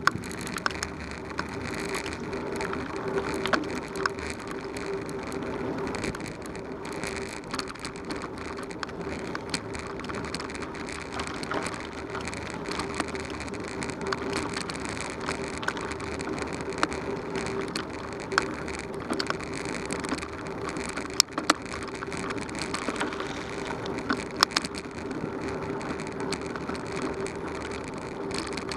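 Bicycle tyres rolling over a dirt and gravel road: a steady crunching noise with a low hum underneath and frequent sharp clicks.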